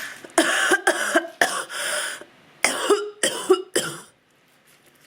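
A woman coughing in a fit: two runs of several short coughs, stopping about four seconds in. It is the cough of an illness, with her throat still inflamed.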